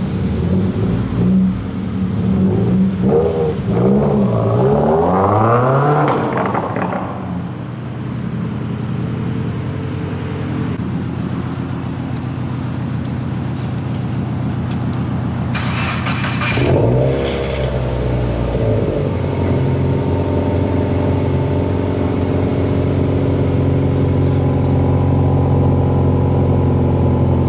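Subaru WRX STI's turbocharged flat-four engine revving, its pitch swinging up and down several times in the first few seconds. About 16 seconds in there is a short, loud whoosh, then another quick rev, and after that the engine runs at a steady pitch.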